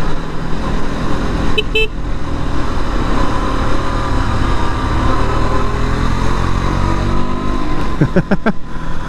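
2022 KTM RC 200's single-cylinder engine running steadily under light throttle. A short vehicle horn toot sounds about two seconds in.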